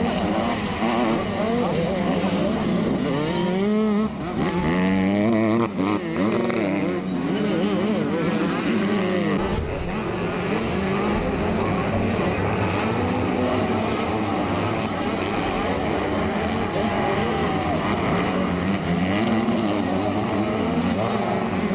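Several motocross bike engines revving, their pitch rising and falling as they overlap. The sound changes abruptly about nine seconds in.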